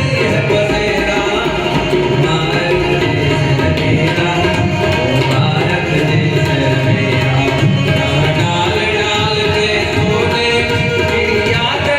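Indian song with tabla drumming under a melodic accompaniment, and a singing voice.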